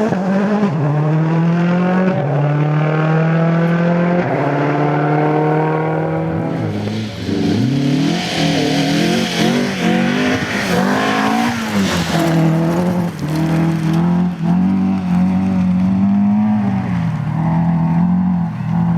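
Rally car engine running hard, its pitch holding and then changing in steps. Later the revs rise and fall quickly for several seconds under a burst of hiss, then the engine settles to a steady note.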